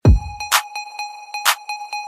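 Electronic background music with a steady beat. It opens with a deep thud, then sharp hits fall about once a second over a sustained bright synth tone.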